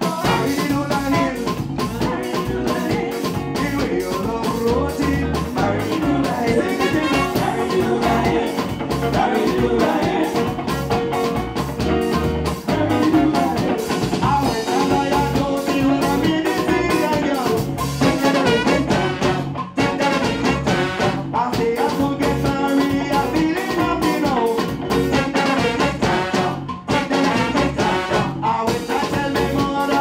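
A live band with drum kit and bass guitar playing an upbeat Caribbean-style dance number, with a lead singer and backing vocals.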